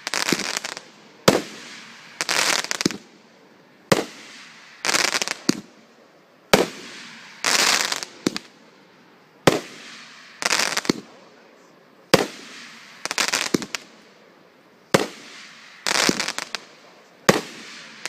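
A 500-gram fireworks cake firing shot after shot: a sharp report about every two and a half to three seconds, each followed about a second later by a burst of crackling from the gold crackling chrysanthemum stars.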